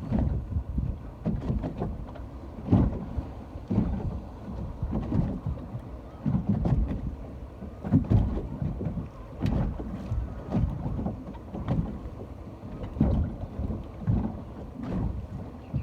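Ocean water splashing and lapping, with wind buffeting the microphone: uneven low rumbling surges and small splashes every second or so.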